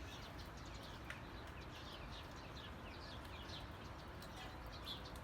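Faint outdoor night ambience: many short, high chirps, several a second, from night-time wildlife, over a low rumble.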